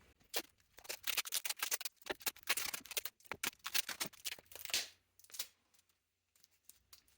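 Tape being pulled off the roll and wrapped around a wooden bandsaw blank, a quick run of crackling ticks that stops about two seconds before the end.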